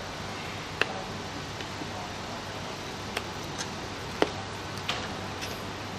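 A few sharp, light clicks and taps of small parts being handled, about four in all, over a steady background hiss.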